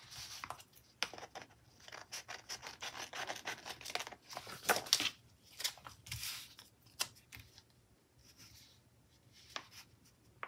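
Paper rustling and rubbing as planner pages are shifted and a paper sticker is handled and smoothed onto a page. It comes as short scratchy rustles and light ticks, dense in the first half and sparser later.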